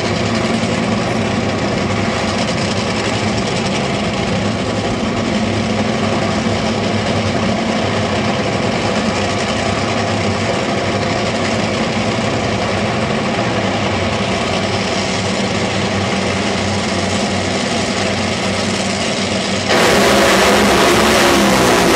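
Two Top Fuel dragsters' supercharged nitromethane V8s running steadily on the starting line, then about 20 seconds in both launch at full throttle with a sudden, much louder blast.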